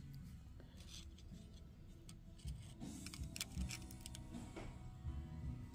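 Faint, irregular light metallic clicks and ticks of small parts and tools being handled on a cylinder head during valve spring removal, coming more often about halfway through.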